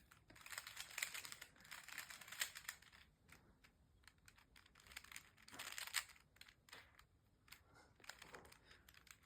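Faint, rapid plastic clicking and rattling of a 3x3 Rubik's cube's layers being turned quickly through solving moves, easing off about three seconds in and then picking up again in shorter runs.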